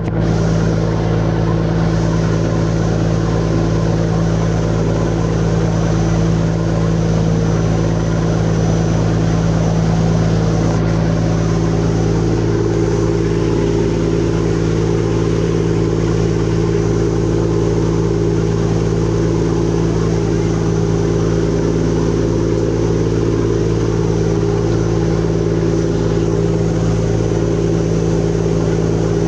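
Riverboat engine running steadily underway, a loud even drone with a deep hum, over water rushing along the hull; the drone's higher hum grows stronger about twelve seconds in.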